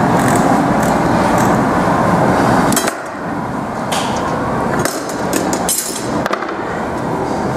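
Steady rushing noise of the glassblowing studio's glory hole furnace, which drops a little about three seconds in. After that come scattered sharp clinks and knocks of the steel blowpipe being rolled along the metal bench arms.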